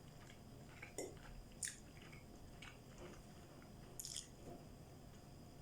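Faint mouth sounds of someone chewing food, with a few short soft crackles about a second in, again shortly after, and near four seconds.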